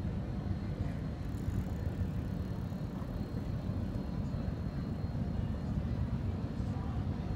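Steady low rumbling noise with no clear pitch or rhythm.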